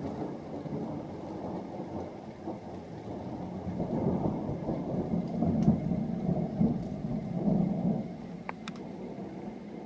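Thunder rolling: a long low rumble that builds to its loudest in the middle and then dies away, with a few sharp clicks near the end.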